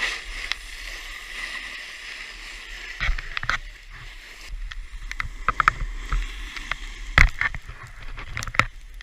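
Snowboard sliding and scraping over snow, with low wind rumble on the action-camera microphone and a scatter of sharp knocks and clacks, the loudest about seven seconds in.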